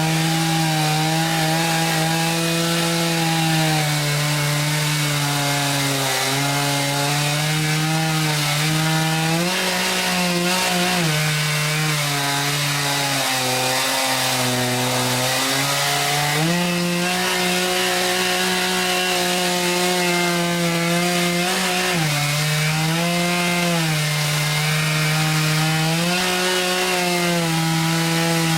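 Chainsaw running under load in an Alaskan chainsaw mill, ripping a log lengthwise. The engine pitch sags and recovers several times as the cut bogs down and frees up, with a long dip in the middle before it climbs again.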